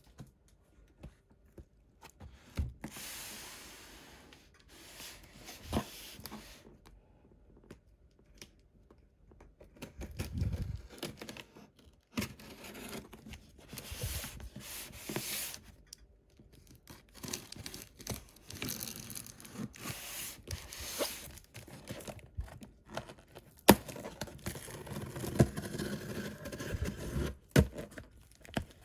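Toy packaging being opened by hand: irregular bursts of tearing, crinkling and scraping, with sharp clicks and knocks in between.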